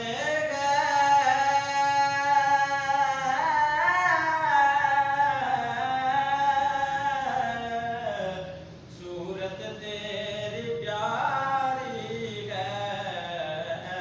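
A man's voice chanting a devotional recitation in long, held melodic lines, with a short break about nine seconds in before the chant picks up again.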